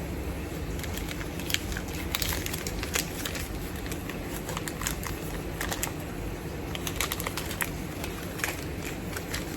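Scattered crinkles and small clicks of packaging being handled as a cardboard advent calendar is opened and a small toy is unwrapped.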